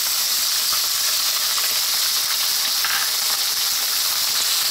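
Canned tuna flakes frying in hot cooking oil in a nonstick wok: a steady sizzle as the tuna is lightly toasted.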